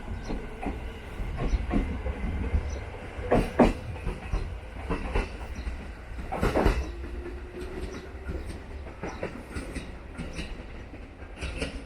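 JR Narita Line train running on the rails: a steady low rumble with irregular wheel clacks and knocks, the loudest about three and a half and six and a half seconds in.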